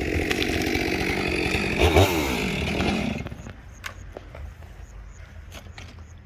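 Stihl MS 462 two-stroke chainsaw with a 28-inch bar running at full throttle through the felling cut of a dead pine. About three seconds in the saw drops away, and a few scattered sharp cracks and snaps follow.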